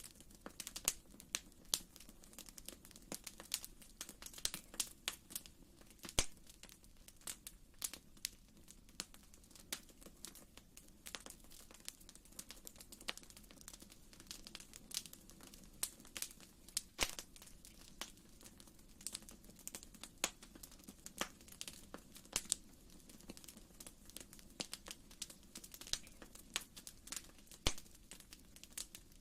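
Wood fire crackling in a fireplace: irregular sharp snaps and pops, several a second, over a faint steady low background.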